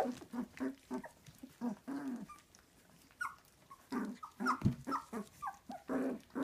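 Several young puppies whimpering, with short growls and yips, as they jostle at a bowl of dry kibble: a quick run of short cries, several a second, some dipping in pitch, with a dull thump about two-thirds of the way through.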